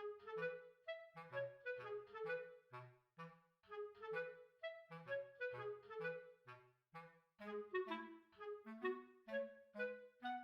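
Background music: a bouncy tune of short, separate notes, about two to three a second, over a bass line. It starts suddenly at the very beginning.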